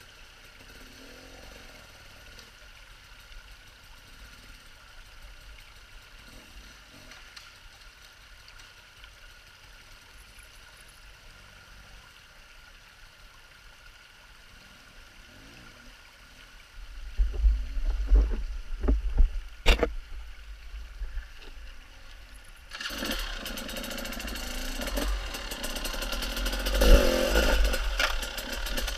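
Enduro dirt bike engine faint and distant at first, as the bike ahead climbs away up the rocky creek bed. Low bumps and a sharp click come near the camera about two thirds in, then a nearby dirt bike engine comes in suddenly and loudly and keeps running as the bike rides off over the rocks.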